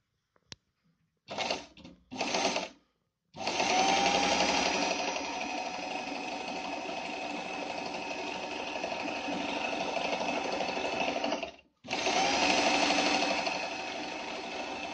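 Pfaff 294 sewing machine stitching through fabric: a few faint ticks, two short bursts, then a long steady run of about eight seconds, a brief stop, and running again to the end. The motor whine rises as it speeds up at the start of each run.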